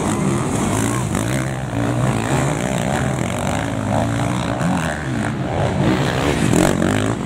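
Several motocross bikes' engines revving hard as they race past, overlapping, the pitch rising and falling again and again with throttle and gear changes.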